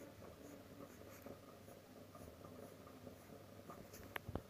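Pencil drawing on paper: faint scratching strokes of the graphite tip, with two short sharp clicks about four seconds in.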